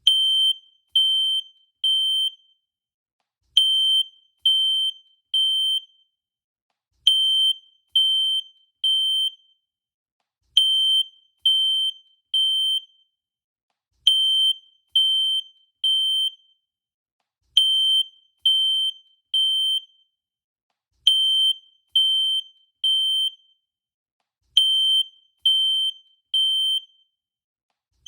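Fire alarm sounding in the temporal-three pattern: three high beeps, a pause, then three more, repeating about every three and a half seconds. This is the standard evacuation signal.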